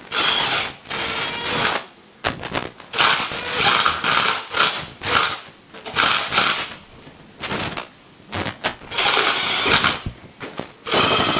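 Ratchet wrench clicking in repeated short bursts as the head bolts of a Milton Roy G Series dosing pump are run in, one after another, until they are snug.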